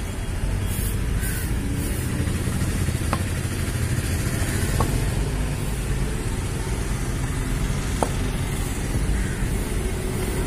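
A steady low background rumble, with a few faint, light metal clicks as a chainsaw cylinder is pressed and seated onto its crankcase by hand.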